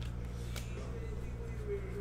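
Faint background music over a steady low hum, with a couple of sharp clicks in the first second.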